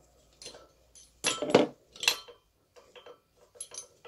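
Metal clinking and knocking as a bolt-type pulley remover and its bolts are taken off a harmonic balancer pulley. The loudest clinks come about a second and a half in, with lighter ticks after.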